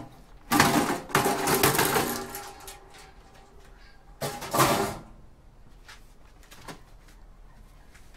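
Steel PC case being worked open: two bursts of metallic rattling and scraping, the first about two seconds long, the second shorter, with a few light clicks after.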